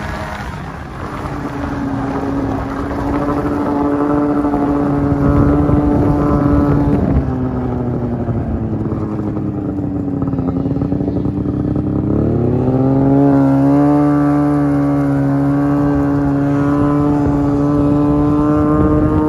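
Snowmobile's two-stroke engine running under throttle at a steady pitch. About seven seconds in it eases off and the pitch sinks, then about twelve seconds in it picks up again and holds steady.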